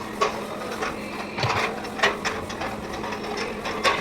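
Irregular metallic clicks and clinks of hand tools and parts being handled, a few sharper strikes among quieter ones, over a faint steady hum.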